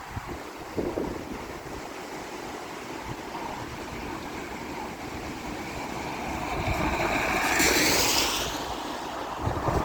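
Wind rumbling on the microphone, with a louder hissing rush that swells about seven seconds in and fades again near the end.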